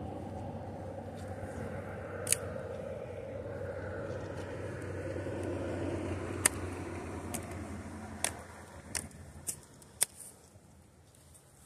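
A vehicle passing by, its steady noise swelling and then fading away about eight seconds in. Several sharp clicks sound over it, a few close together near the end.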